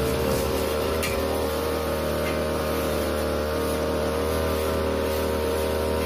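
42cc brush cutter engine running at a steady speed, an even drone with no revving.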